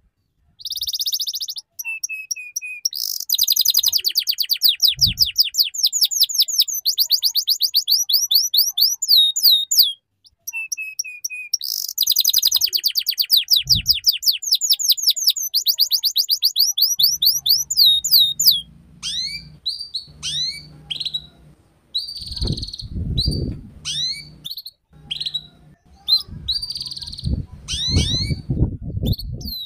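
Domestic canary singing in the ngeriwik style, long runs of fast, high rolling trills. About halfway through it changes to sharper, separate down-slurred chirps, with a low rumble underneath.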